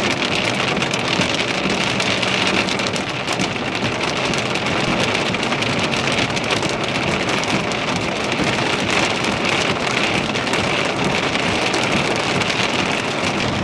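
Steady thunderstorm rain: an even hiss made of countless drops hitting a surface close to the microphone.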